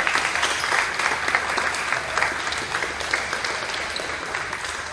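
Spectators applauding, many hands clapping together, gradually dying down toward the end.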